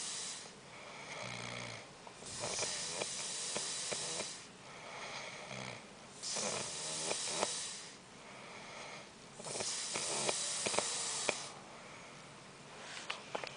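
Snoring in a slow, regular breathing rhythm, about one breath cycle every four seconds. A loud, hissing, raspy breath alternates with a quieter, low buzzing one.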